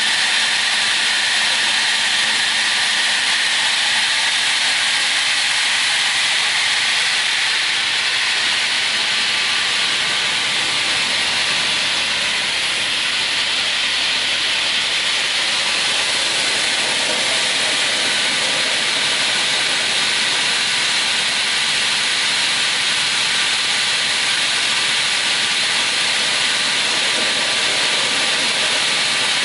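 Raimann KR 230D crawler-feed multi-rip saw running with no wood in it, its saw blade spinning free and the crawler feed track moving. The sound is a loud, steady noise that does not change.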